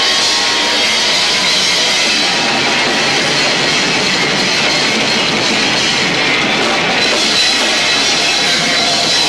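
Live rock band with two drummers playing loud, dense, hard-driving music with drums and guitar, captured by a camcorder's built-in microphone in low-fi sound.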